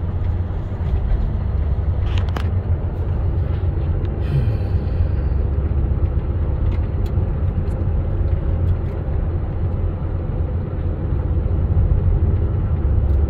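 Steady low rumble of a car driving along a road, heard from inside the cabin: engine and tyre noise with a few faint ticks.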